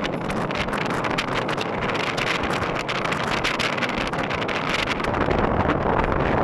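Wind buffeting the microphone over the steady rush of a car travelling on a paved road. The low rumble gets louder about five seconds in.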